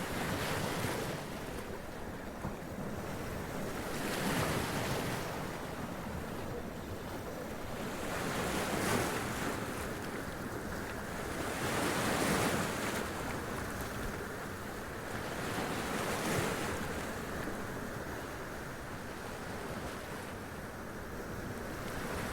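Sea waves washing up over rocks, a steady wash of surf that swells into a splash about every four seconds, with some wind on the microphone.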